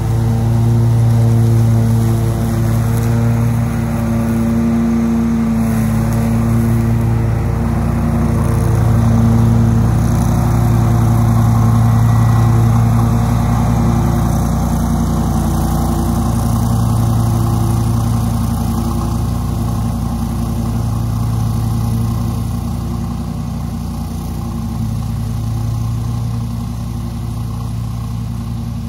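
Bad Boy Maverick HD zero-turn mower's Honda 779cc V-twin engine running steadily under load, its 60-inch deck cutting knee-high wet grass. The sound grows louder as the mower comes close, then fades as it drives away near the end.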